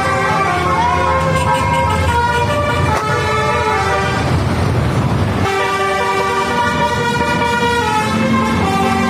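Bus telolet horn, a Basuri multi-tone musical air horn, sounding continuously through a run of changing notes. A rushing noise swells up over it about four seconds in for a second and a half, and the horn notes come back after it.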